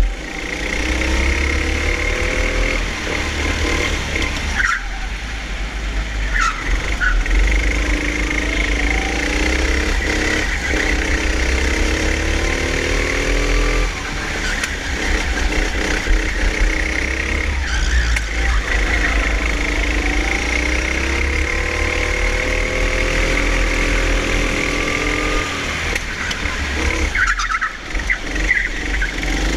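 A Honda four-stroke hire-kart engine heard from on board, revving up in rising sweeps as the kart accelerates out of each corner, then dropping back as it lifts off, over and over. A steady high whine runs underneath.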